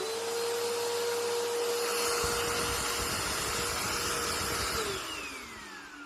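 Bissell PowerLifter bagged upright vacuum running with a steady motor whine; about two seconds in a low rumble joins in. Near the end it is switched off and the motor winds down, its pitch falling away.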